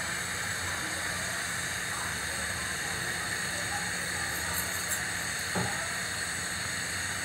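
Strawberries at a rolling boil in a stainless steel pot on a gas stove: a steady bubbling hiss, with a small knock a little past five seconds in.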